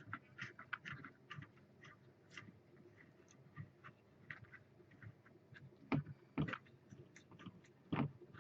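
Small irregular clicks and ticks of the mounting screws on an XSPC Raystorm CPU water block being screwed down in a crisscross pattern, with three louder knocks about six, six and a half and eight seconds in.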